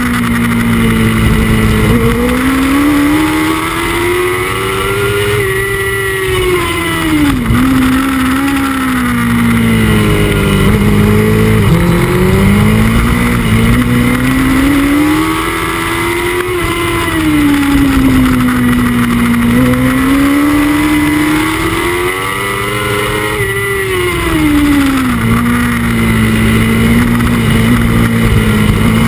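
Honda CBR1000RR's inline-four engine at race pace with wind rush, revs climbing and falling through the corners. The pitch drops sharply twice as the bike brakes and shifts down.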